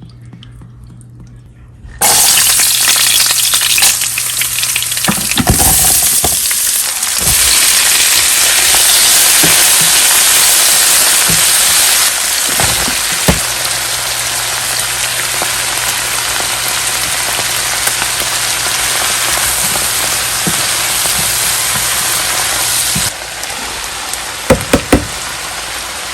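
Food frying in hot oil in a pan: a loud sizzle starts suddenly about two seconds in and runs on steadily, with a few knocks of a utensil against the pan. It drops in level near the end.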